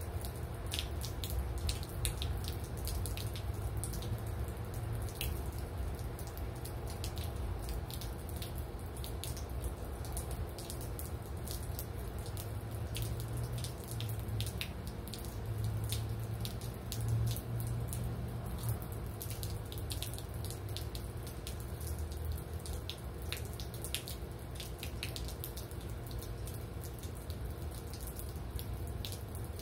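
Rain falling, with many irregular close drips and ticks of drops landing, over a steady low rumble that swells for a few seconds about halfway through.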